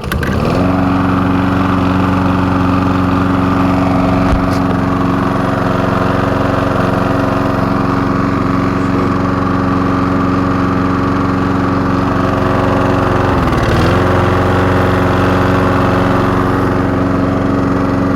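Walk-behind self-propelled lawn mower's small engine catching and running at a steady speed. About thirteen seconds in, the speed dips briefly and then recovers.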